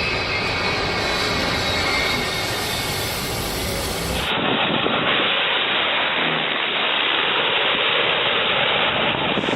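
Aircraft engine noise, a steady rushing roar with no distinct events. About four seconds in it switches abruptly to a duller, more muffled recording of the same kind of roar.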